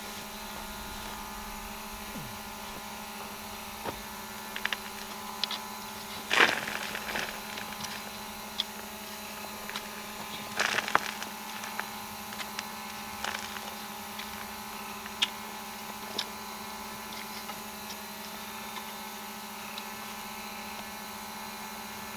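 A steady hum made of several held tones, with scattered clicks and two louder clattering knocks, about six and eleven seconds in.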